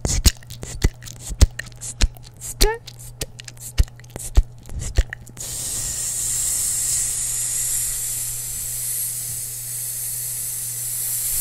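Close-miked mouth sounds: about five seconds of sharp clicks and pops from chewing gum, then one long steady hiss, a held "sss" through the teeth, which lasts the rest of the time.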